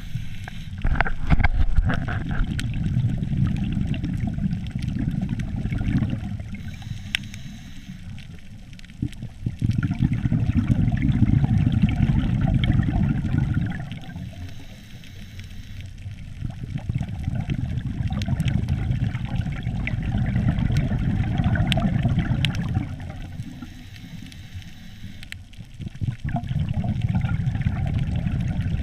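A scuba diver's exhaled bubbles rumbling past a GoPro in its underwater housing. There are four long bursts of several seconds each, with quieter pauses between breaths, and scattered faint clicks throughout.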